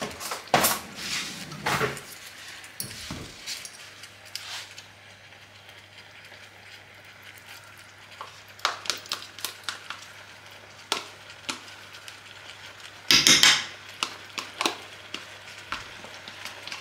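Scattered clinks, taps and scrapes of a utensil against a frying pan and a plastic tub as ricotta is spooned onto wilted spinach, with one longer, louder scrape about thirteen seconds in.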